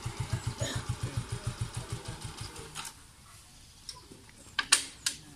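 Small single-cylinder motorcycle engine idling with an even, low beat that fades and stops about three seconds in. A few sharp clicks follow, the loudest near the end.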